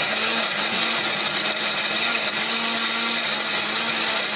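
Electric countertop blender running steadily, grinding chilies, shallots, garlic and candlenuts with a little water into a wet spice paste.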